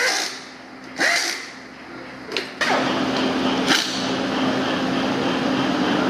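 Air-powered screwdriver driving screws into a motorcycle engine's aluminium case in two short runs, one at the start and one about a second in, each winding up and down in pitch. From about two and a half seconds in, a steady hiss with a constant low hum takes over.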